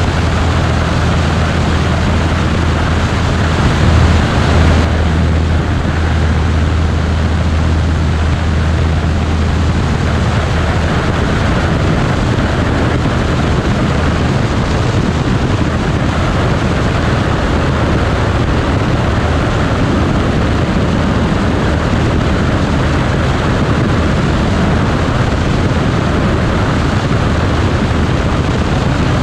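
Bücker Jungmann biplane in flight: steady engine and propeller drone mixed with rushing airflow over an open-air camera. The low engine note is plainest for the first several seconds, then blends into the wind rush.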